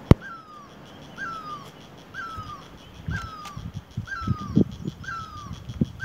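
Great barbet calling: a short, shrill note that rises briefly and then falls in pitch, repeated about once a second. A sharp click sounds just after the start, and a few low thuds come through the middle.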